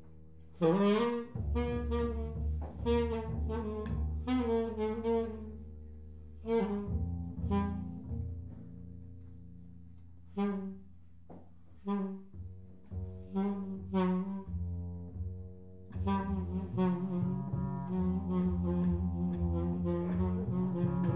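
Live duet of tenor saxophone and double bass: the saxophone plays short phrases over held low bass notes. Around the middle the saxophone drops to short, separate notes with pauses between them, and the playing grows busier near the end.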